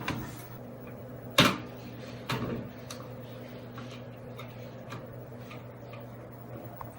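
Sharp clicks and taps from handling gear at a workbench: a loud click about a second and a half in, another about a second later, then fainter ticks, over a steady low hum.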